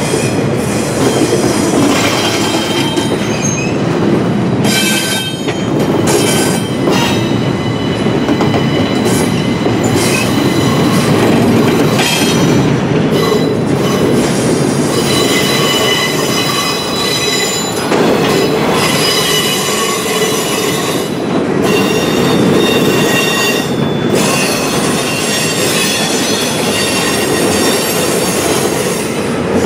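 Intermodal freight train's well cars rolling past: a steady rumble of wheels on rail, laced with high-pitched wheel squeal that comes and goes.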